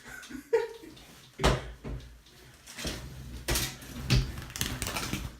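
Knocks, bumps and rustling from a person scrambling to grab a loose bird, with the loudest knocks about one and a half seconds in and again around three and a half to four seconds in.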